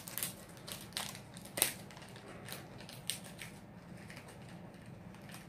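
Small plastic fishing-hook package being handled and opened: scattered faint clicks and crinkles, with a few sharper clicks in the first two seconds.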